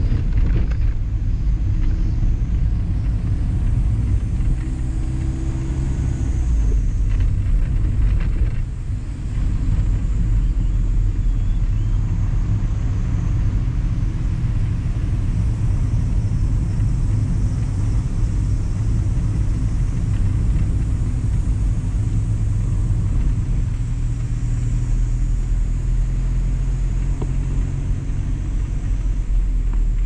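ND Mazda Roadster (MX-5) driving, with its engine and road noise making a steady low rumble, picked up by a camera mounted on the car. The rumble dips briefly about eight or nine seconds in.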